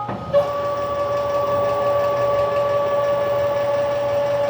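Stepper motor of a CNC-converted PM-727M mill driving an axis at constant speed: a steady whine at one pitch that starts with a click about a third of a second in.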